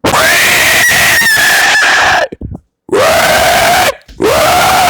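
A person making a loud screech with their voice, three times: a long, high one of about two seconds, then two shorter ones of about a second each that slide up at the start and then hold.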